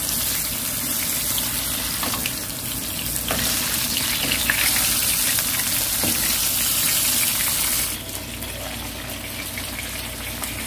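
Atka mackerel fillets coated in potato starch sizzling in plenty of oil in a frying pan, with a few short taps of a spatula as the fillets are turned. The sizzle drops off abruptly about eight seconds in, leaving a quieter hiss.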